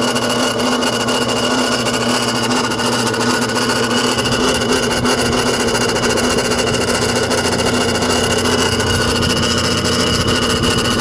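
BMW N54 twin-turbo straight-six engine running with a steady grinding noise, which the owner suspects may come from the AC compressor. A deeper hum grows stronger about four seconds in.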